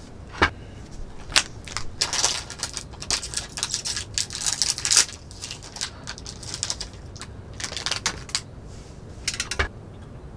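Plastic snack wrapper crinkling in several bursts as a wrapped snack is picked up and handled, with two sharp clicks about half a second and a second and a half in.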